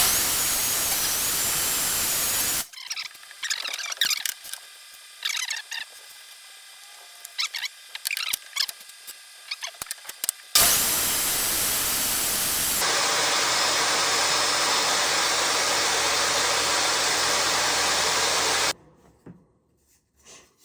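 Kobalt table saw running in two loud stretches as wood is cut to size: a short burst about two and a half seconds long, then a longer run of some eight seconds from about halfway through. Each stretch cuts off suddenly. Between them come light knocks and clatter of wood being handled.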